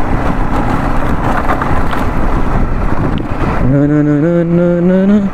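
Honda CBR150R's single-cylinder engine under way on a dirt track, at first buried in wind and road noise. Near the end the engine note comes through clearly and rises as the bike accelerates.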